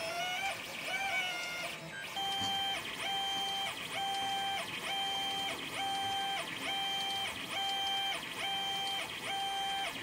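TronXY X5S 3D printer's stepper motors whining as they drive the print head at 110 mm/s. Their pitch wanders up and down at first. From about two seconds in, the tones go steady and change briefly about every two-thirds of a second as the head runs back and forth.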